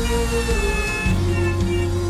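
Background music with long held notes over a steady bass, the melody stepping down about half a second in and again about a second in.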